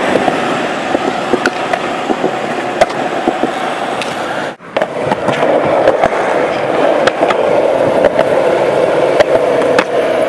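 Skateboard wheels rolling on smooth concrete, a steady rumble with scattered sharp clicks and knocks from the board. The sound drops out for a moment a little under halfway in.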